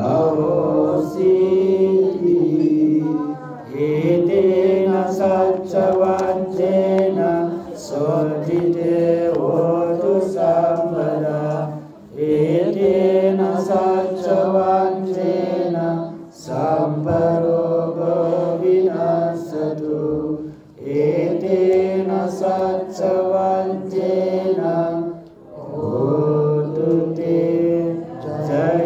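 Buddhist monk chanting Pali in a slow, melodic male voice, sung in several long phrases with brief breath pauses between them.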